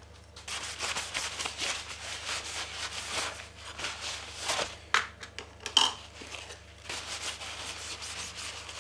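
A rag wetted with brake cleaner rubbed quickly back and forth over hard-PVC parts, wiping them clean, a rapid scrubbing rustle. A few sharp clicks of the parts being handled come about halfway through.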